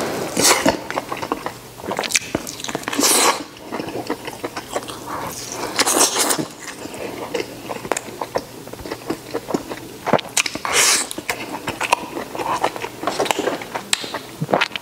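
Close-miked eating: a man biting and chewing braised beef held in his fingers, with wet smacking and clicking mouth noises and several louder sucking slurps.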